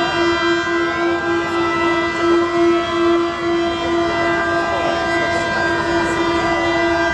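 Several ship horns blowing together in a long, steady launch salute. A low horn is the loudest and is held throughout, with higher-pitched horns sounding over it.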